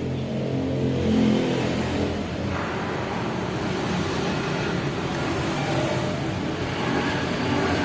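Suzuki GT750 two-stroke triple engine running, revved up about a second in and then running on steadily.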